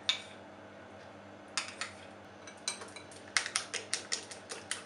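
Eggs being beaten with a utensil in a glass bowl: the utensil clinks against the glass, a single clink at the start, then a few irregular clinks from about a second and a half in that settle into a quick steady beat of about six a second.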